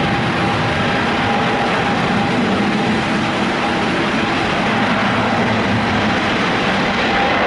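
Boeing 777's jet engines at takeoff power: a loud, steady roar with a faint steady whine.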